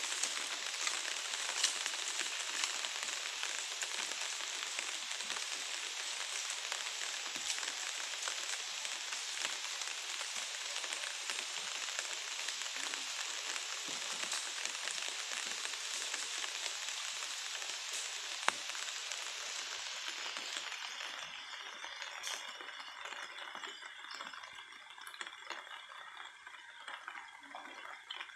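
Rain falling steadily in a dense patter, easing off about two-thirds of the way through to a lighter, sparser patter.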